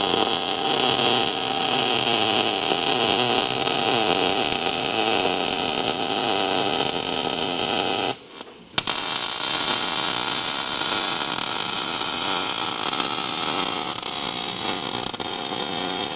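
MIG welder arc crackling steadily while running welds on steel tubing. There are two runs, with a short break about eight seconds in.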